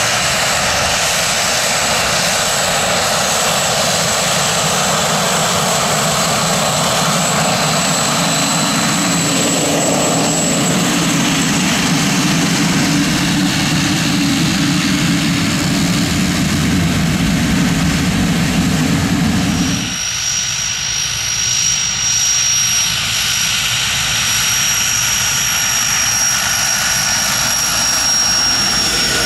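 Pilatus single-engine PT6A turboprops taxiing: first a PC-12, a steady turbine whine over propeller drone, then after a sudden cut about twenty seconds in a Pilatus PC-7 trainer with a thinner, high turbine whine.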